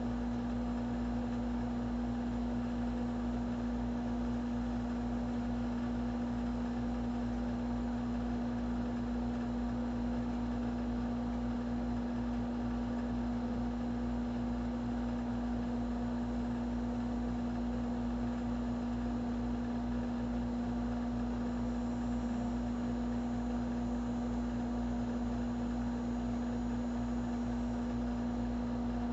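A steady hum with one strong low tone, unchanging throughout.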